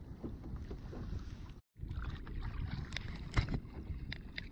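Wind rumbling on the microphone and water moving against a kayak, with a brief dropout a little under halfway through. Afterwards come a few sharp clicks and knocks, the loudest about three and a half seconds in.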